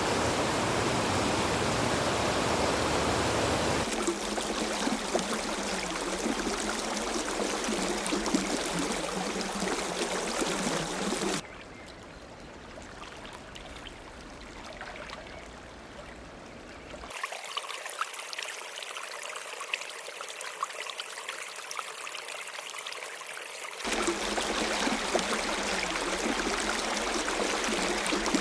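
Flowing water of streams and brooks, a series of separate recordings that cut abruptly from one to the next every several seconds. The first and last are fuller and louder. In the middle come quieter, thinner trickling flows.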